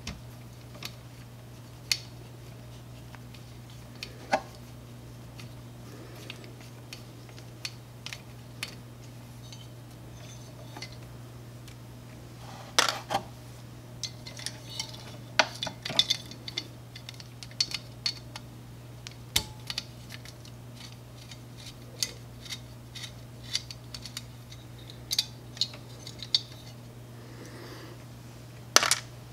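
Scattered small clicks and clinks of a screwdriver, screws and metal and plastic print-head parts being handled as the head of an Ultimaker 2+ 3D printer is taken apart, coming thickest in the middle, with a louder clack near the end. A steady low hum runs under it.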